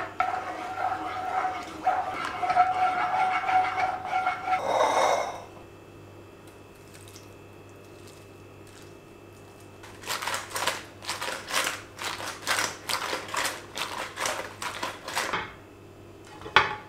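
A wooden spoon stirring a butter and hot-sauce mixture in a small frying pan: a steady, slightly squealing scrape for about five seconds. After a quieter spell, sauced chicken wings are tossed in a glass bowl, a run of quick strokes about two a second, with one sharp click near the end.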